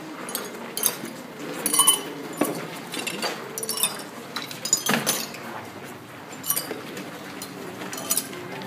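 Small glass vessels clinking and knocking against one another and the tabletop as they are handled, in a string of irregular short clinks.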